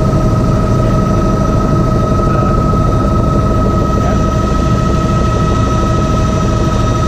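Cockpit noise of a Bell 206B JetRanger III helicopter in steady cruise: the Allison 250 turboshaft's constant high whine over a dense low rumble from the rotor and drivetrain, unchanging throughout.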